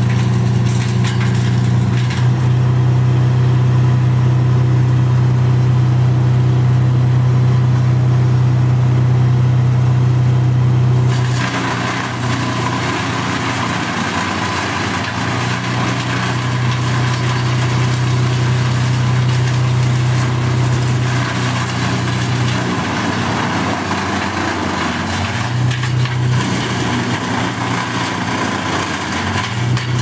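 Engine-driven wood chipper running with a steady engine hum. About eleven seconds in a rougher, hissing noise across the whole range joins and stays, while the engine hum drops out and comes back a few times.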